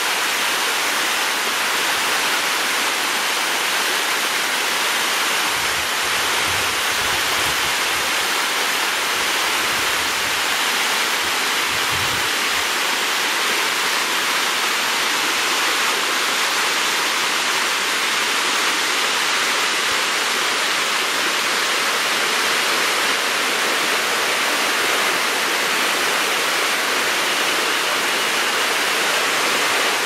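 Hot-spring stream of a waterfall rushing and splashing down smooth rock slabs: a steady, even rush of water.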